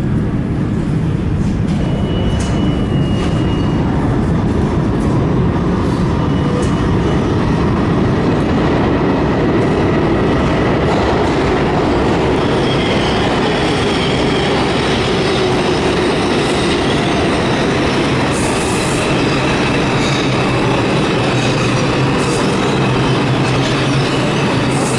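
R62A subway train approaching through the tunnel, a loud steady rumble of wheels on rail. Thin, high wheel-squeal tones join from about halfway through.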